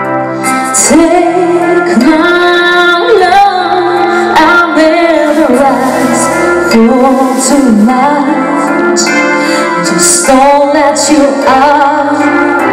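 A woman singing solo into a microphone over instrumental accompaniment; her voice comes in about a second in and holds long, wavering notes.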